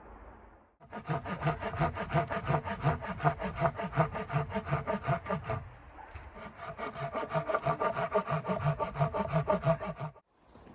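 Hand saw cutting wood with quick, even back-and-forth strokes. There are two runs of sawing with a brief pause near the middle, and the sawing cuts off sharply just before the end.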